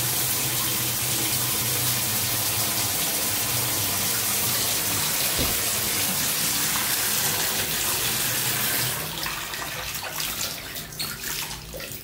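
Shower head running, water spraying and splashing onto tile with a low steady hum in the pipes; the plumber puts the odd flow down to a faulty tub/shower diverter. About nine seconds in the flow drops away to lighter, patchy splashing and dripping.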